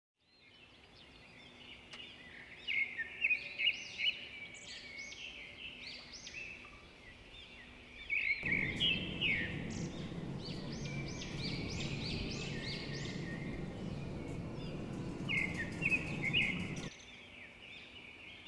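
Many small birds chirping in quick, overlapping calls. A steady low rushing noise joins them about eight seconds in and cuts off a second or two before the end.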